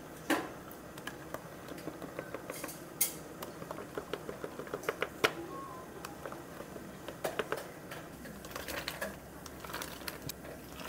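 Drink-making clatter at a cafe counter: a long spoon stirring in plastic cups, clicking rapidly against the cup walls, then ice cubes tipped from a metal scoop into the cups, clinking, in the second half.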